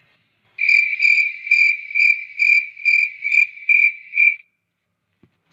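A cricket chirping: a run of about ten short, evenly spaced high chirps, two or three a second, that stops shortly before the end.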